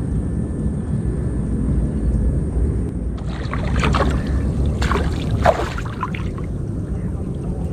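Water splashing and pouring off a bamboo-framed lift net (branjang) as it is hauled up out of swamp water, for about three seconds starting around three seconds in, with a sharp splash near the end of it. A steady low rumble runs underneath.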